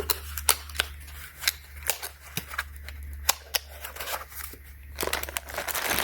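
Irregular sharp clicks and taps of small objects being handled during an unboxing, over a steady low hum.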